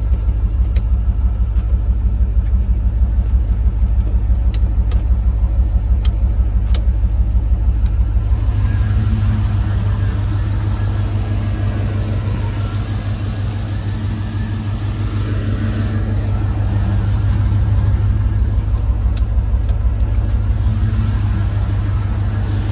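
Vehicle engine idling with a steady, pulsing low exhaust rumble that grows fuller about eight seconds in, with a few light clicks scattered through it.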